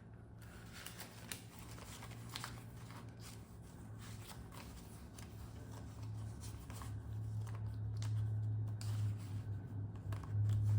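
Paper banknotes being shuffled and sorted by hand: light rustling and soft crinkling ticks, over a steady low hum that grows louder in the second half.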